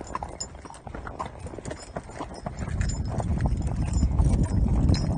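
Hooves of a saddle horse and pack mules walking, an irregular clip-clop of footfalls, growing louder in the second half.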